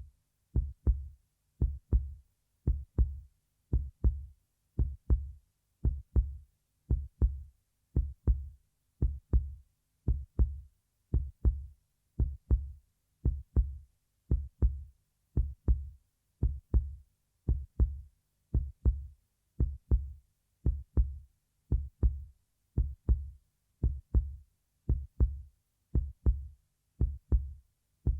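Heartbeat sound effect: low double thumps, lub-dub, repeating at a steady, even rhythm.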